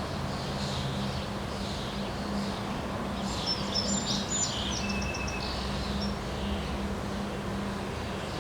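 Outdoor wind noise, with faint chirps repeating about twice a second and a short burst of bird song about three seconds in. A steady low hum runs underneath.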